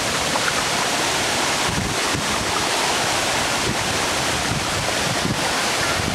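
Jungle waterfall's water rushing in a steady, loud roar, with wind buffeting the microphone in low, uneven rumbles.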